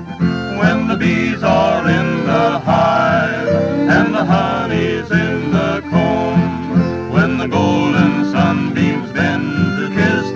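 A 1935 western string-band recording playing an instrumental passage: acoustic guitars strumming and picking, with a fiddle.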